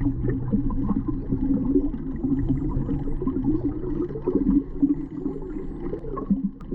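Dolphins whistling and clicking, heard underwater: many short wavering whistles and scattered clicks, muffled.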